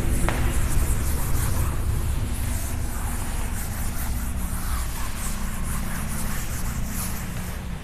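A blackboard duster rubbed back and forth over a chalkboard, erasing chalk writing: a continuous scratchy swishing over a steady low hum in the room.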